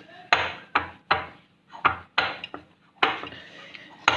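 A kitchen utensil knocking and scraping against a mixing bowl while flour, oil and water are mixed into dough: about seven sharp, irregular knocks, each with a short scraping tail.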